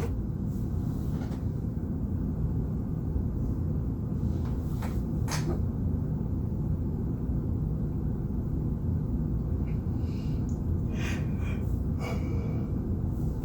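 A person hiccupping now and then, a few short sudden catches of breath spread over several seconds, over a steady low rumble.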